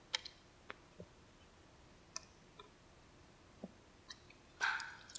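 Light, scattered metallic clicks and taps of a ratchet and hand tools working on the belt guides of a Yamaha 4.2 L V6 outboard powerhead, with one louder, longer clatter near the end.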